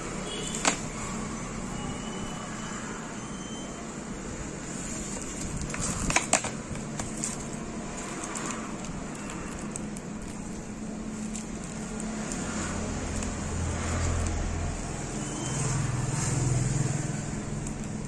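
Steady background noise with a few sharp clicks, one soon after the start and a pair about six seconds in, and a low rumble that swells and fades between about twelve and seventeen seconds.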